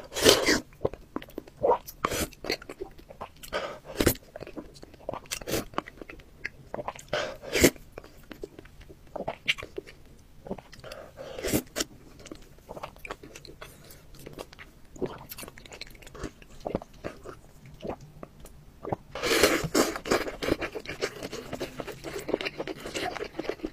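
Close-up eating sounds: a spoon clicking against a cup, with sharp sipping and mouth clicks, then denser chewing and slurping in the last few seconds.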